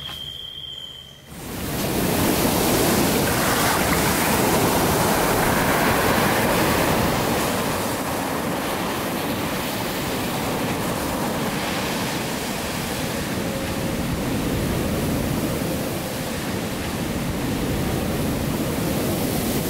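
Ocean surf breaking and washing up a sandy beach, a steady rush of waves that swells in about a second and a half in.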